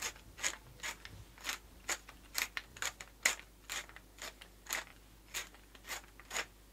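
Wooden pepper mill grinding black pepper, with a short crunchy grinding stroke on each twist, about two a second.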